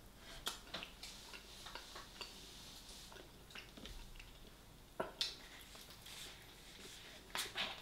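A person chewing fried chicken close to the microphone: scattered wet mouth clicks and lip smacks, with a few sharper clicks about half a second in, at about five seconds and near the end.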